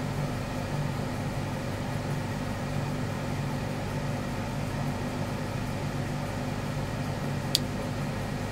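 Steady low mechanical hum with several held tones, and a single sharp click near the end.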